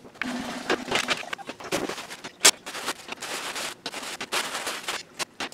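A shop rag wiping the enamel and chrome control panel of a vintage Universal gas stove: irregular scratchy rustling and rubbing, with a sharp click about two and a half seconds in.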